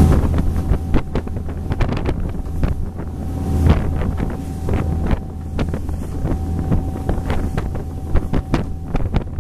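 Motorboat under way at speed: the engine's steady low drone under the rush of the churning wake, with wind buffeting the microphone. A thin steady tone runs along with it and stops near the end.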